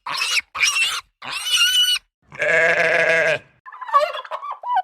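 A quick run of animal call sound effects: three short, wavering high calls, then a longer bleat about halfway through, then a warbling call near the end.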